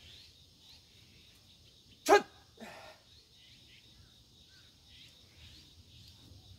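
A dog barking: one loud, short bark about two seconds in, falling in pitch, followed by a fainter second one. A faint steady high-pitched hum sits in the background.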